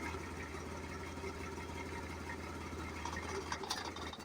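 Boxer 700HDX mini skid steer's engine idling steadily, with a few clicks near the end, then shutting off just before the end.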